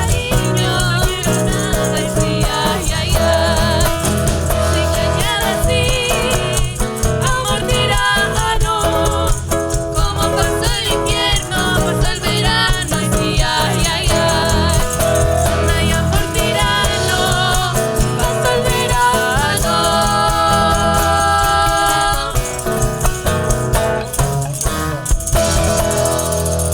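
Chilean cueca music with singing over instrumental accompaniment and rattling percussion.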